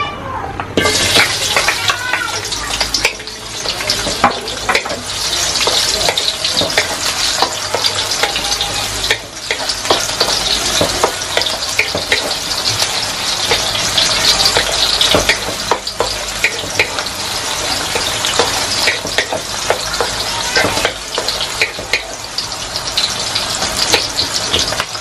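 Sliced onions hit hot oil about a second in and sizzle steadily as they are sautéed in an aluminium wok. A wooden spatula stirring them scrapes and taps against the pan from time to time.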